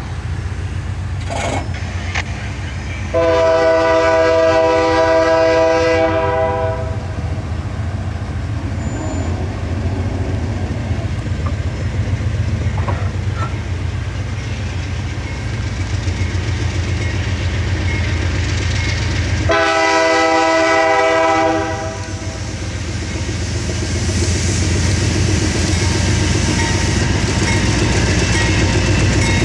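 CSX freight train's GE diesel locomotives running with a steady low rumble, and the locomotive air horn sounding two long chords, the first about three seconds in and held for about three and a half seconds, the second near twenty seconds in and held for about two seconds.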